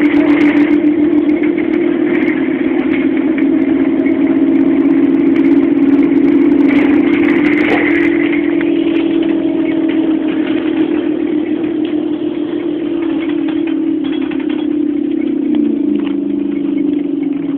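Volvo Olympian double-decker bus's diesel engine heard from inside the moving bus: a steady drone that drops in pitch about two thirds of the way through, with a few rattles.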